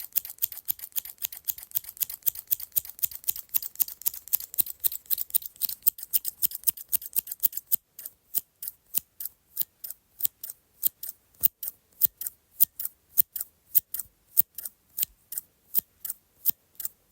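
Medium-sized scissors snipping repeatedly, crisp sharp cuts. Rapid, quick snips at first, then about eight seconds in they slow to a steady two or three snips a second.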